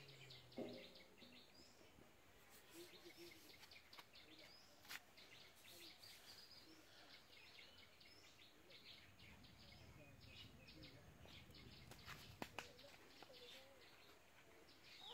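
Near silence: faint outdoor background with scattered bird chirps and a few soft clicks.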